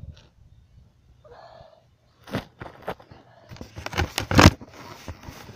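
Gravel crunching and scraping close to the microphone, with several sharp knocks; the loudest come about four seconds in.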